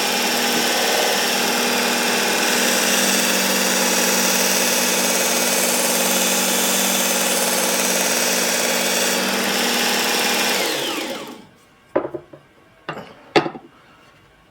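Work Sharp Ken Onion Edition Mk2 sharpener with its blade grinding attachment running steadily, a fine abrasive belt grinding the edge of a meat cleaver. About eleven seconds in, the motor is switched off and spins down. A few sharp clicks and knocks follow.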